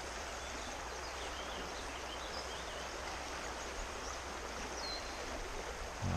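Steady rushing of Pine Creek running high, with a few faint high bird chirps over it.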